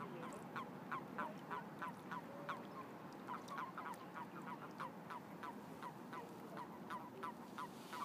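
Chorus of common toads calling in their spawning pond: many short croaks, several a second, overlapping without a break.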